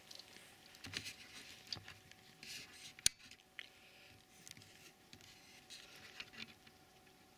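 Faint rustling and handling noises close to the camera, with one sharp click about three seconds in as the camcorder's video light is switched on.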